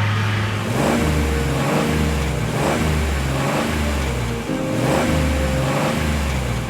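Cartoon vehicle engine sound effect revving up and down again and again, over a low background music line.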